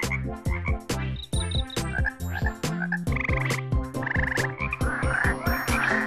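A chorus of frogs croaking: many quick, overlapping pulsed calls with a few short trills mixed in.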